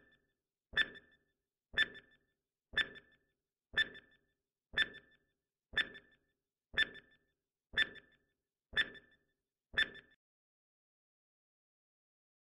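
Countdown timer sound effect: a sharp clock-like tick once a second, ten ticks in all, stopping about two seconds before the end.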